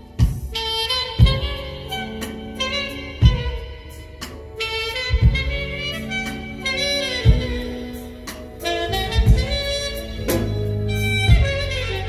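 A live band playing jazzy music. A saxophone carries held melody notes over bass and a drum kit, with strong drum hits about every two seconds.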